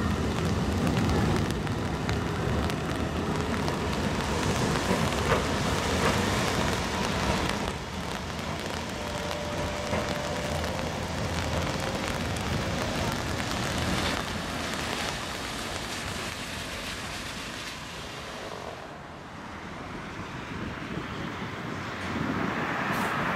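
A tram rolling past and away with a low rumble over a steady hiss. The sound fades, then grows again near the end as another tram approaches.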